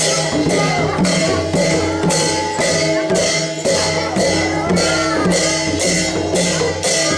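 Live dance music: a hand drum and bright, rattling percussion beat a steady rhythm of about two strokes a second over steady held tones.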